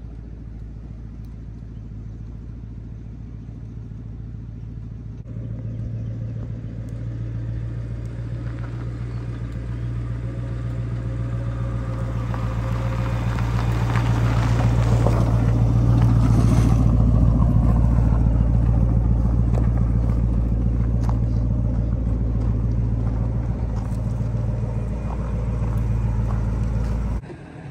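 1966 Ford Mustang coupe's engine running at a low, steady speed as the car drives slowly up and past, growing louder as it nears, with tyres crunching on gravel as it passes close, then cutting off suddenly near the end.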